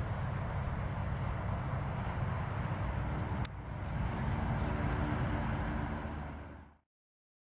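Car with a straight-through exhaust running with a steady low rumble, broken by a sharp click about three and a half seconds in, then fading out near the end.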